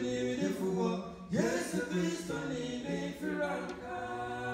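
Small male a cappella group singing in harmony into microphones, without instruments, on long held chords.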